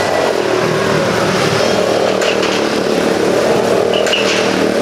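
Motorcycle engines running inside a steel-mesh globe of death: a steady, loud engine din that wavers a little in pitch.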